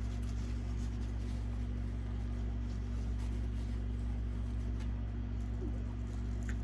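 Steady low electrical hum, with faint soft clicks and smacks scattered through it from someone chewing a mouthful of bacon cheeseburger close to the microphone.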